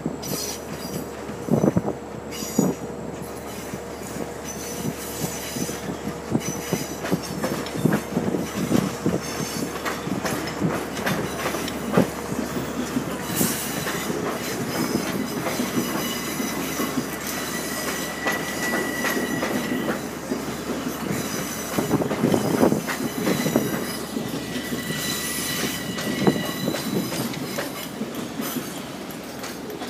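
Trains rolling through the station's switches: steel wheels clicking over rail joints and frogs, with a high, steady wheel squeal in stretches through the middle and again near the end.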